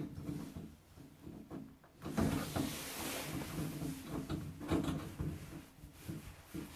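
Handling noise of a plastic shower head being screwed onto the shower arm by hand: irregular clicks and knocks with a stretch of scraping from about two seconds in.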